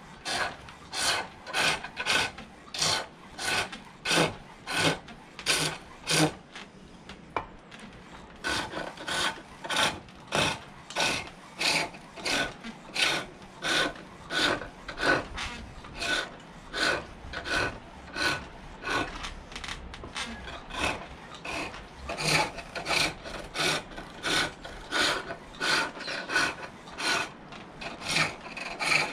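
Turning tool cutting green silver birch on a foot-powered pole lathe: rhythmic scraping cuts, about two a second, each as the treadle drives the wood down against the blade, with a brief break about seven seconds in.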